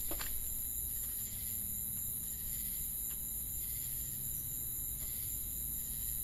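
Steady night-time ambience of crickets chirping, with a single soft step right at the start.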